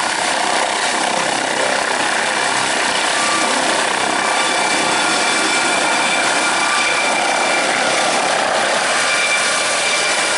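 MD Explorer NOTAR helicopter lifting off and moving away, its twin turboshaft engines and main rotor at take-off power: a loud, steady rushing with a high turbine whine running through it.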